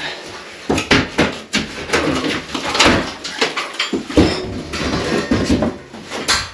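Irregular knocks, clatters and scrapes of building materials being handled and set down.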